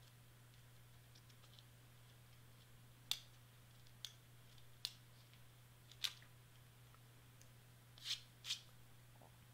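Faint, short rustles and taps of glitter cardstock pieces being handled and pressed down by hand onto a paper craft on a cutting mat, about six in all, two close together near the end, over a low steady hum.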